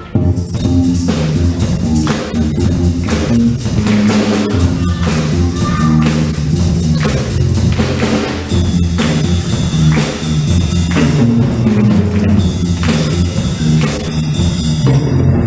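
Middle school jazz band playing live, with the drum kit and a walking low bass line carrying a steady groove and the horns kept in the background.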